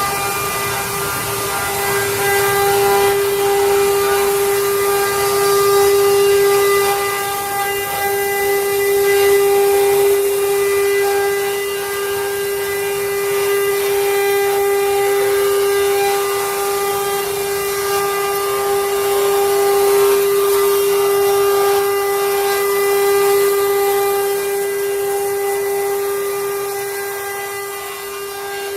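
CNC router spindle running steadily while carving wood: one unbroken whine with overtones above it and a high hiss, swelling a little in level as it cuts.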